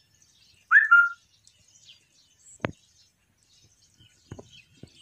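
A short whistled call about a second in: a bending note that settles into a steady, slightly lower one. A single sharp tap follows a couple of seconds later.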